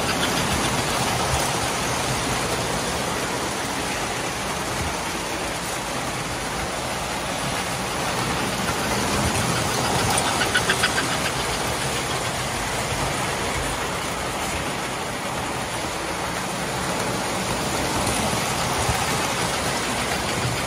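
Several vintage tinplate model electric trains running on metal track: a steady rattle and hum of wheels and motors. It swells, with rapid clicking, as the steam locomotive and its freight cars pass close, about ten seconds in and again near the end.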